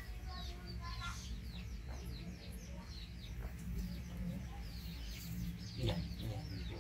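Birds chirping over and over: many short, high chirps that each drop quickly in pitch, over a steady low hum.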